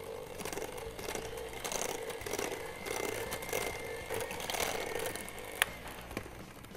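Electric hand mixer running steadily with its twin beaters in a stainless steel bowl, beating whipped cream into pastry cream. Its hum stops about five and a half seconds in, followed by a sharp click.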